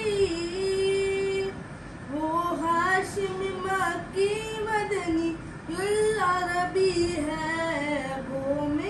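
A boy singing a naat unaccompanied. He holds one long note, breaks off briefly, then goes into phrases that bend and turn in pitch.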